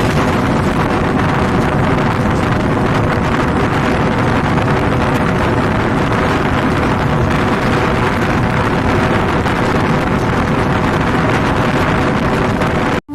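Loud steady rushing of a moving train with wind buffeting the microphone, faint steady tones running underneath. It cuts off abruptly just before the end.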